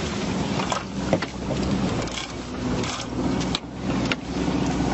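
Small fishing boat's engine running steadily under wind and sea noise, with a few sharp knocks as a loaded king crab pot is swung aboard over the rail.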